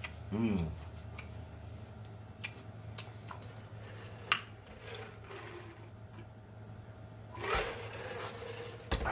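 Close-miked eating of mussels from the shell: a short hummed "mm" just after the start, then sharp wet mouth clicks and smacks spread through the chewing, with a louder slurp-like sound near the end.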